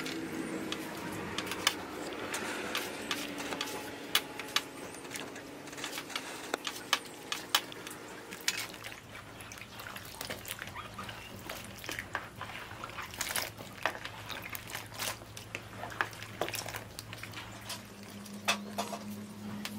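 Hands swishing and rubbing cut brinjal (eggplant) pieces in water in a plastic tub, with scattered small splashes and knocks.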